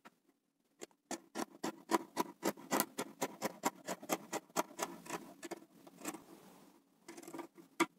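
Scissors cutting through polar fleece in a steady run of short snips, about three or four a second, stopping about six and a half seconds in, with a few more snips near the end.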